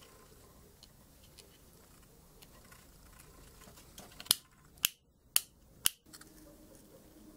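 Plastic household wall-switch mechanism being handled while wires are fitted into it: small clicks and rustling, then four sharp plastic clicks about half a second apart.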